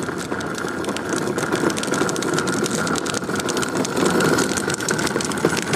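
Pull wagon rolling over the ground, its wheels and body rattling with a steady stream of clicks.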